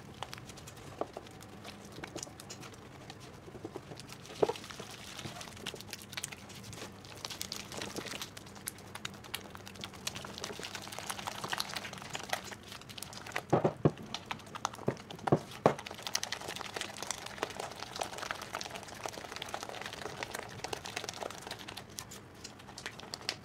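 Silicone spatula stirring and scraping a thick mix of icing sugar, soft butter and egg around a glass bowl: a steady run of small irregular scrapes and clicks, with a few sharper knocks, most of them a little past halfway.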